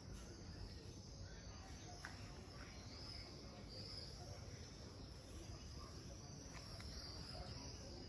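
Faint insects chirring steadily at a high pitch, swelling and fading, over a low background rumble.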